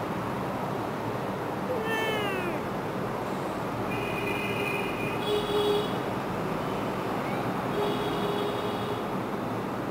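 Kitten meowing about four times, the first call falling in pitch, over a steady background hiss.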